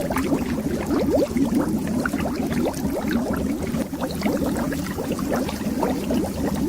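Bubbles rising and bursting under water in a dense, continuous stream of many small rising blips over a low rumble.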